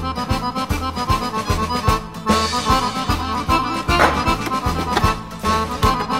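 Background music: a lively Italian-style accordion tune over a steady bouncing bass beat.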